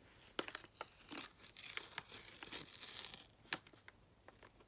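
A paper envelope torn and crinkled by hand: a run of tearing rustle in the middle, with a few sharp clicks before and after.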